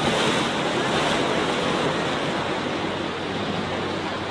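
Small sea waves breaking and washing up on a sandy beach, a steady rush that swells at the start and eases off slightly.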